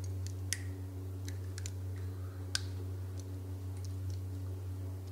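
Pliers biting and cracking the red plastic casing of a fan capacitor: scattered sharp clicks and snaps, two louder ones about half a second and two and a half seconds in, over a steady low hum.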